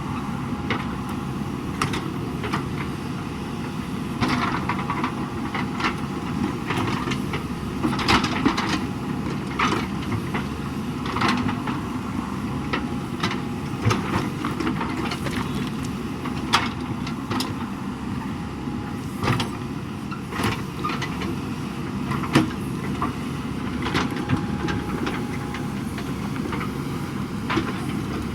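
JCB backhoe loader's diesel engine running steadily at work, with frequent sharp clanks and knocks from the working machine.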